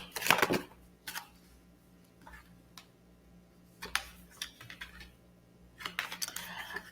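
Tarot cards being handled: scattered light clicks and taps, a cluster in the first second and another near the end.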